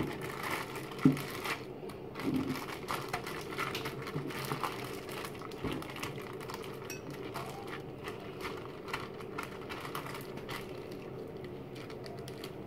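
Zip-top plastic bag crinkling and rustling as hands press and smooth it around a marinated fish, with one sharp tap about a second in. The crinkling thins out near the end.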